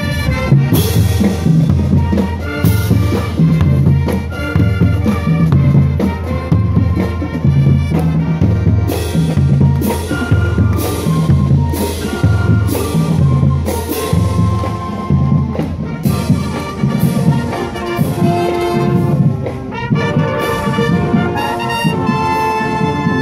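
College marching band playing a tune: brass and flutes over a steady drum beat, with a repeating bass line underneath.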